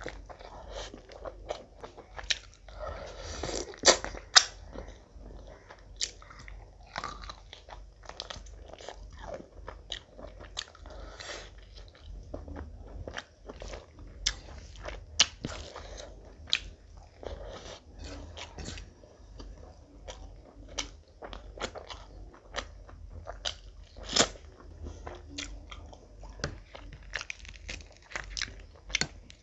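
Close-miked eating of a large mouthful by hand: chewing and biting with many sharp, wet crunches and smacks, loudest about four seconds in.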